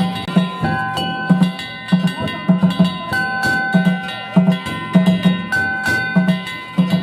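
Danjiri festival music: a taiko drum beaten in quick, uneven strokes together with small hand gongs (kane) clanging and ringing.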